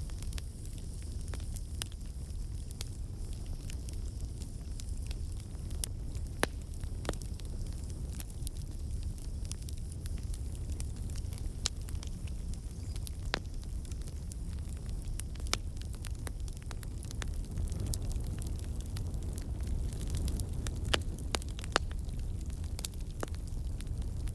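Campfire burning: a steady low rumble of flames with irregular sharp crackles and pops from the wood.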